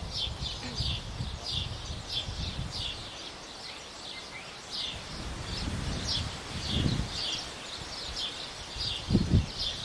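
Birds chirping in the trees, short high calls repeating two or three times a second, over a low rumble that swells briefly about seven and nine seconds in.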